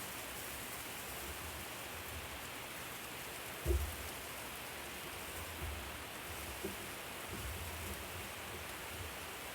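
Steady sizzling hiss of food cooking on a hot barbecue grill, with a few dull low thumps, the loudest about four seconds in.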